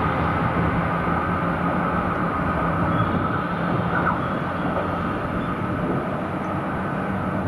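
JR Shikoku 2700 series diesel limited express pulling away, its diesel engines running with a steady drone that eases slightly as the train recedes.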